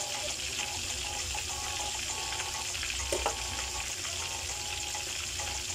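Yellowfin tuna jaw deep-frying in hot oil in a shallow pan, a steady sizzle, with a single light knock about three seconds in.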